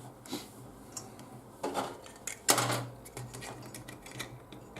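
Clinks and knocks of small metal parts and tools being handled on a workbench while an LED driver is put back together, with a louder clatter about two and a half seconds in.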